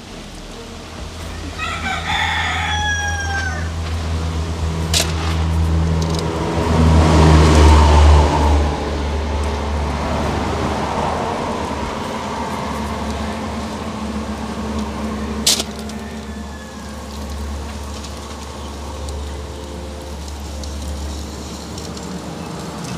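A rooster crows about two seconds in, over a steady low engine hum that swells in the middle and eases off. Two sharp clicks come later.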